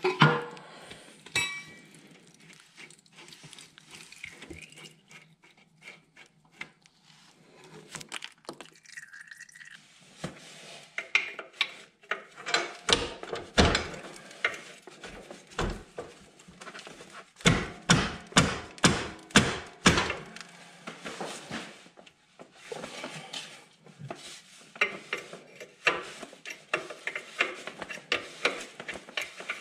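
Hand wrenches clicking and knocking against steel hydraulic line fittings on a drive pump as the fittings are worked loose, in uneven clusters of sharp metallic clicks with short pauses between them.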